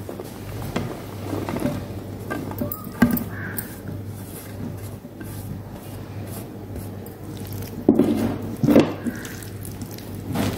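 A hand squishing raw cashew nuts into thick gram-flour batter in a glass bowl: wet squelching and the clatter of nuts, loudest about eight seconds in, over a steady low hum.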